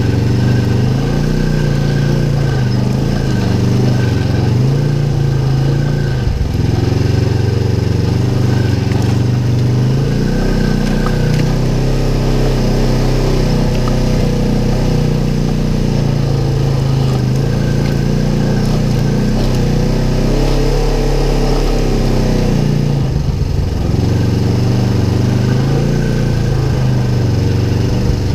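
Polaris RZR XP 1000's parallel-twin engine running loudly while the side-by-side is driven along a rough trail, its pitch rising and falling with the throttle. It is heard from inside the open cab.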